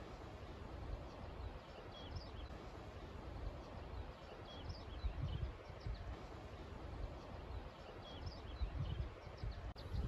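Wind gusting over the microphone in low rumbles, with small songbirds giving short high chirps at intervals.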